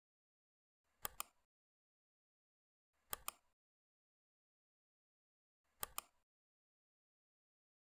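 Computer mouse clicked three times against near silence: about a second in, about three seconds in and just before six seconds. Each click is a sharp pair of ticks, the button's press and release.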